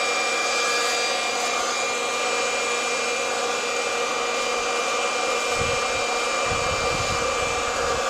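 Small electric air mattress blower, running off a 12-volt battery, with a steady motor whine and rush of air as it blows air through a pipe up into the charcoal of a pit forge. Low rumbling comes in near the end.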